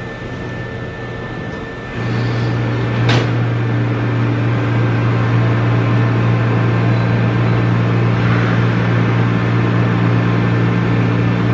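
A steady low machine hum from the standing Nankai 8300 series electric train's onboard equipment switches on about two seconds in, with a single sharp click a second later, and runs on evenly.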